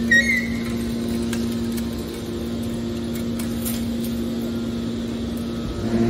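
Hydraulic scrap metal baler running with a steady hum from its power pack as the ejector cylinder pushes a compressed bale out of the chamber. A brief high squeal sounds right at the start.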